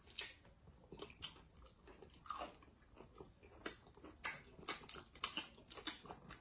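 Faint mouth sounds of eating fried whole catfish: chewing and biting, with irregular small clicks and smacks.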